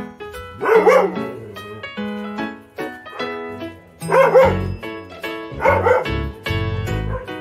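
Background music of keyboard or piano notes with a bass line coming in partway, and a dog barking three times over it: about a second in, at about four seconds and near six seconds.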